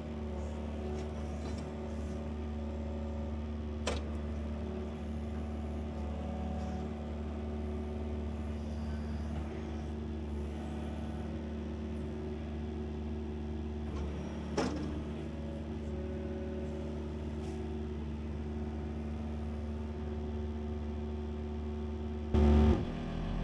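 Excavator's diesel engine running steadily, with a sharp click about four seconds in and another about fifteen seconds in, and a brief louder burst near the end.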